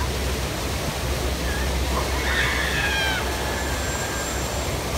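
Steady rushing noise, with faint, distant high-pitched screams from riders on the S&S combo tower ride, wavering about two to three seconds in.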